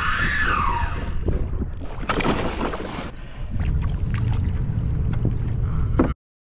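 Fishing reel drag singing as a fish takes line, a whine wavering up and down in pitch that fades out about a second in. Then wind buffeting the microphone and water sloshing around a kayak, with scattered clicks, until the sound cuts off suddenly near the end.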